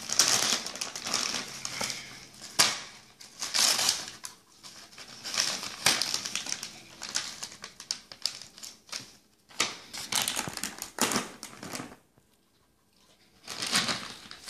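Wrapping paper crinkling and tearing in irregular bursts as a Lhasa Apso rips it off a gift with its teeth, with a short pause near the end.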